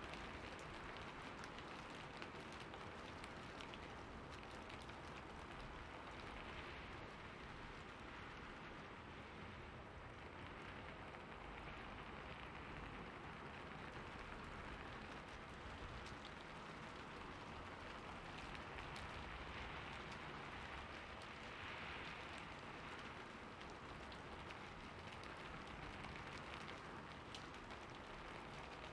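Steady rain falling: an even hiss of many drops, with fine individual drop ticks throughout.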